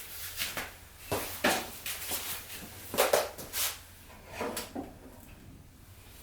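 Irregular knocks and clatter of hard objects being handled, loudest about a second in and again about three seconds in.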